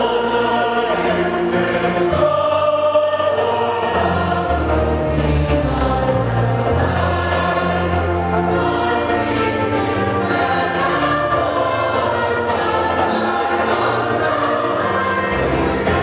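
Choir singing a gospel hymn with a steady bass line underneath.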